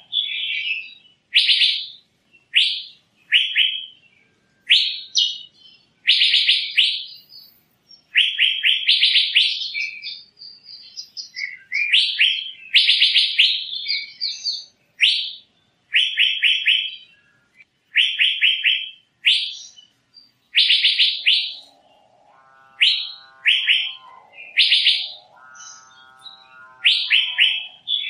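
Asian fairy-bluebird calling: short bursts of rapid high notes repeated about once a second. A lower call with stacked tones comes in twice, around two-thirds of the way through.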